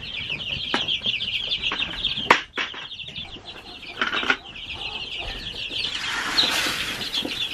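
A large brood of young chicks peeping continuously in many overlapping, quick falling peeps. A few sharp knocks come through, and from about six seconds in a rustling, flapping noise rises under the peeping.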